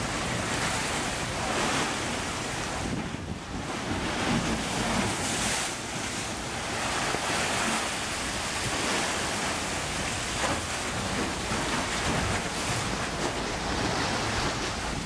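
Sea swells surging and churning into a narrow rock chasm, washing in and draining in repeated swells without a booming clap, because the tide is not right for it. Wind buffets the microphone.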